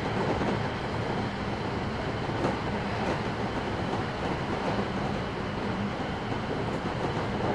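Cabin running noise of a JR 113-series electric train, heard from inside a Kuha 111 driving trailer car: a steady rattle and rush of the wheels on the rails, with a faint steady hum underneath.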